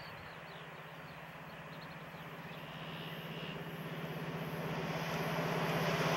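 VIA Rail EMD F40PH diesel locomotive approaching with a passenger train, its engine giving a steady low drone that grows louder as the train nears, with a rising rush of wheels on rail toward the end.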